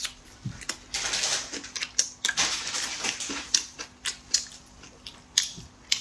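Dense crinkling and rustling with irregular sharp ticks as a thin pancake wrap is folded and rolled by hand around fresh greens. A faint steady hum runs underneath.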